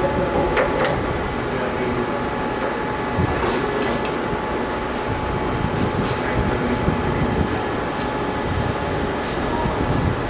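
Steady machinery hum with a faint constant tone. A few light metallic clicks and knocks come through as a round bar is handled in a three-jaw lathe chuck.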